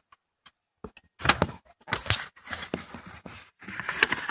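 Rustling and scraping of car parts being handled and fitted back into place in the engine bay, with several sharp clicks, starting about a second in.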